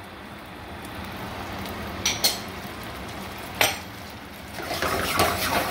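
Hot sauce and butter sizzling steadily in a stainless steel sauté pan, the butter just added to the hot sauce. There are sharp metal clinks about two seconds in and again about three and a half seconds in, then busier clattering near the end.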